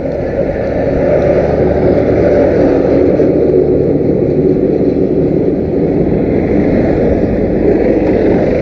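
Motorcycle on the move at a steady speed: the engine running evenly under a dense rush of wind and road noise.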